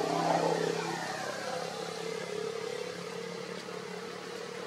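A vehicle engine running steadily, louder and shifting in pitch during the first second, then holding an even hum.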